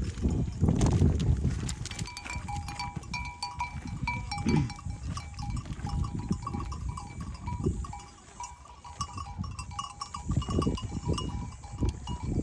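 Small bells worn by a flock of drinking livestock, clinking irregularly over a loud, uneven low rushing noise.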